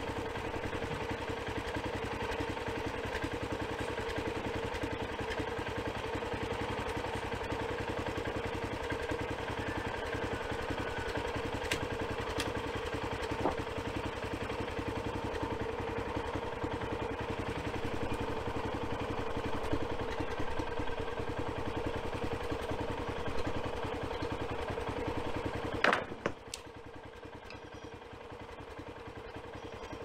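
An engine idles steadily in the background. Near the end there is a single sharp knock, and after it the running sound is quieter.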